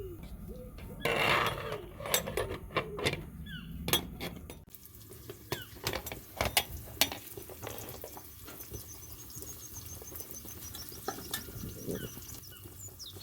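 Metal utensils clinking and scraping against a cooking pot and dishes: a scattered string of sharp clinks, with a louder scrape about a second in.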